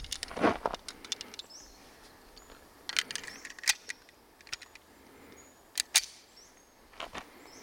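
Sharp metallic clicks of a stainless Walther PPK/S .380 pistol being worked by hand: one about half a second in, two around the three-second mark and a quick pair near the end. Faint bird chirps come in between.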